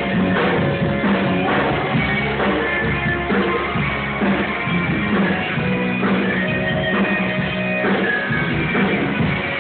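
Loud rock music played by a band, with guitar, running on without a break.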